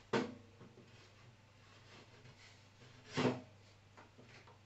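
A cut MDF panel being lowered and slotted into the front slot of a Black & Decker Workmate 800-series bench. There is a short wooden knock at the start and a louder knock a little over three seconds in, with faint rubbing in between.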